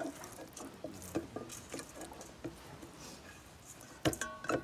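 Soft, scattered taps and clicks of kitchen utensils and dishes being handled while the fish marinade is prepared, with a brief ringing clink about four seconds in.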